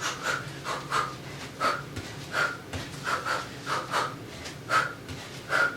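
A woman's short, forceful exhalations, about a dozen sharp puffs of breath in an uneven rhythm, breathed out with fast punches during hard cardio kickboxing.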